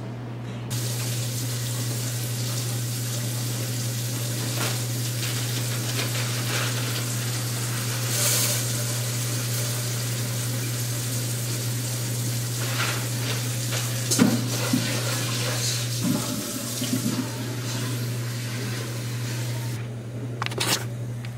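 Kitchen tap running into the sink, a steady rush of water while rice is rinsed, with a few knocks and clinks about two-thirds of the way through. The water shuts off near the end, over a steady low hum.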